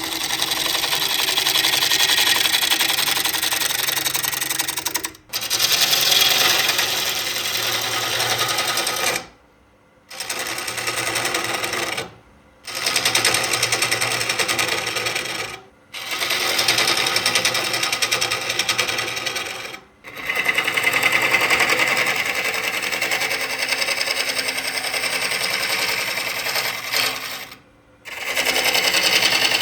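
Woodworking power tool cutting into a wooden blank: a loud, dense cutting noise in runs of several seconds, stopping abruptly about six times for a moment before starting again.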